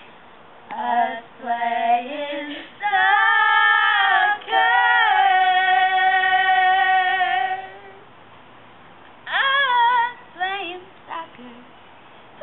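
Girls singing unaccompanied, a cappella, in long held notes with short pauses between phrases.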